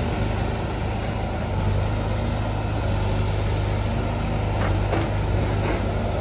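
Sumitomo S265 long-reach excavator's diesel engine running steadily under hydraulic load as the bucket digs into the mud bank and lifts, with a low, even hum and a couple of faint clicks near the end.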